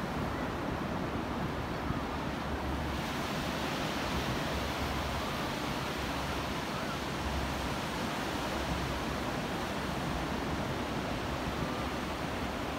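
Ocean surf breaking offshore, a steady wash of waves, with wind rumbling on the microphone.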